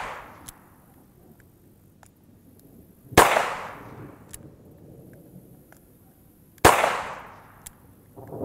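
Two gunshots from an EAA Windicator 2-inch snub-nose revolver firing .38 Special, about three and a half seconds apart. Each is a sharp crack with a short echoing tail.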